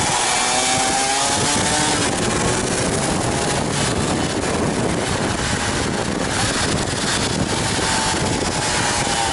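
Yamaha DT230 Lanza's single-cylinder two-stroke engine on the move, its pitch rising and falling with the throttle, under heavy wind rush on the microphone. The engine note stands out in the first two seconds and again near the end; in between, the wind rush mostly covers it.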